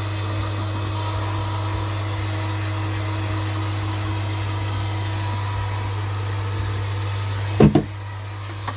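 Pond air pump running with a steady electric buzz and a hiss of air. A couple of sharp knocks come near the end.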